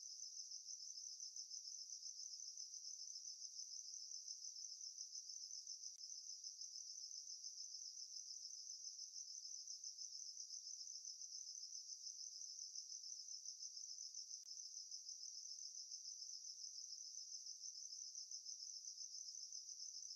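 Crickets chirping in a faint, steady, fast-pulsing trill.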